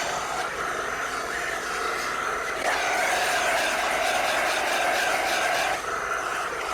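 Steady mechanical whirring noise, like a motor-driven machine running, with a faint held tone that shifts slightly a few times.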